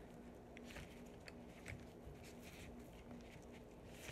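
Faint rustling and light taps of makeup brushes being handled and slipped into their brush case, over a faint steady hum.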